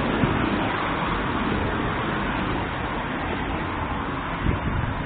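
Steady rushing noise of road traffic, with no distinct pitch, and a few soft low thumps near the end.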